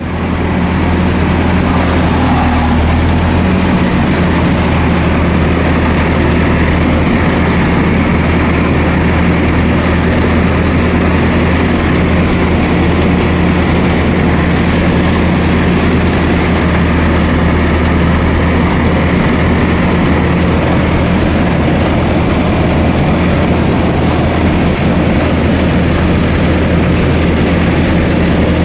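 Bulldozer's diesel engine running steadily at work, a constant low engine tone with broad mechanical clatter over it.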